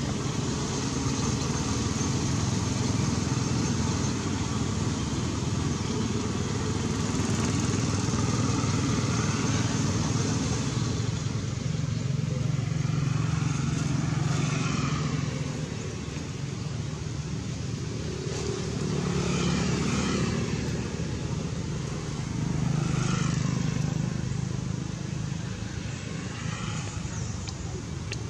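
Engine noise of passing motor vehicles over a steady rumble, swelling and fading several times.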